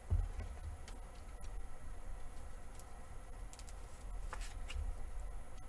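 Faint handling sounds of a trading card being slid into a clear rigid plastic top loader: soft plastic scrapes and a few light clicks over low bumps of hands on the table, with one bump right at the start.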